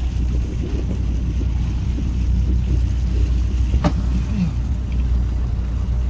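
Steady low rumble of a motor boat's engine, mixed with wind and water noise, and a single sharp click about four seconds in.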